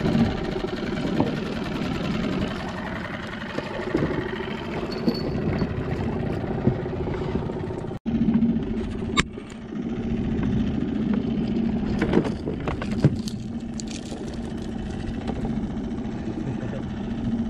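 Small Suzuki outboard motor running steadily. The drone cuts out for an instant about eight seconds in, then carries on at a lower pitch, with a few sharp knocks a little later.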